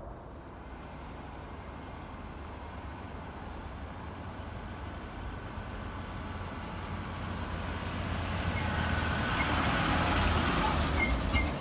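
Heavy truck engine running as the vehicle approaches, growing steadily louder to a peak near the end.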